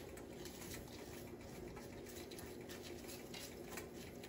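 Uncooked quinoa grains pattering from a small bowl into a pot of broth in faint, irregular little ticks, over a low steady hum.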